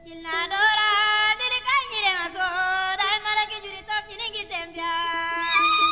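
Music: a high solo voice sings a melody with sliding, bending notes and ends on a long held note, over a steady plucked-string accompaniment.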